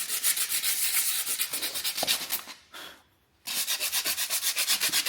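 Rapid back-and-forth hand sanding strokes, about six a second, scuffing a metal part to prepare it for primer. The strokes stop briefly a little past halfway, then resume.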